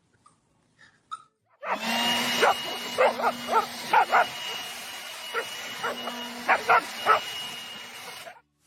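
A dog barking and yipping about ten times in short sharp calls over a loud, steady machine hum that cuts off near the end.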